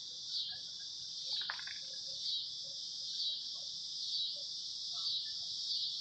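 A steady chorus of insects: a high, dense buzzing that swells about once a second.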